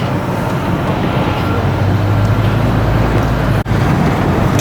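Steady low rumble of a car on the move, heard from inside the cabin: road and engine noise, with a brief dropout about three and a half seconds in.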